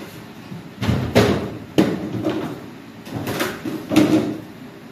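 Hard objects being handled and knocked about: four short bursts of clattering knocks, the sharpest about a second in and just before two seconds in.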